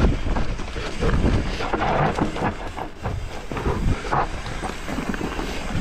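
Mountain bike clattering over a rough trail on a descent: many quick, irregular knocks and rattles from the bike over a steady low rumble.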